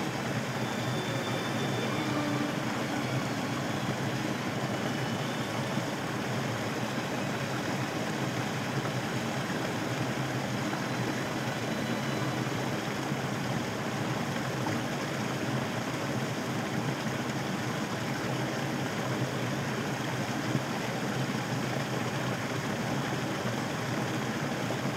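Small creek waterfall, water spilling steadily over rocks in an even, unbroken rush.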